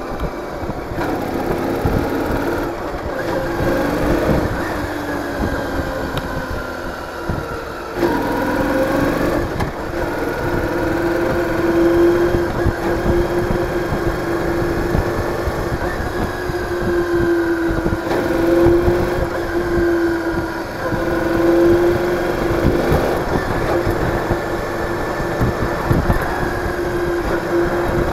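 Cruiser motorcycle engine running under way on a ride, its note rising and falling a few times with the throttle, with low wind rumble on the microphone.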